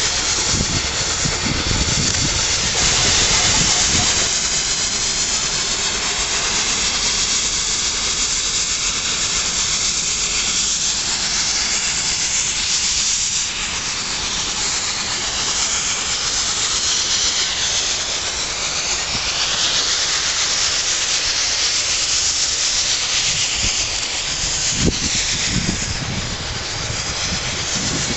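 HG 3/4 rack steam locomotive working uphill at a distance, a steady hiss of steam and exhaust. Wind buffets the microphone near the start and again near the end.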